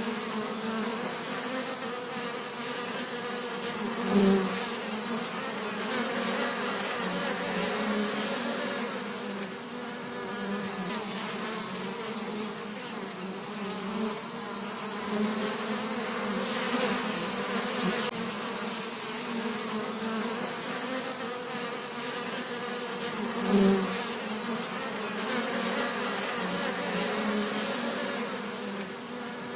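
Bees buzzing in a steady, wavering drone, swelling briefly louder twice, about four seconds in and again past the middle, as a bee passes close.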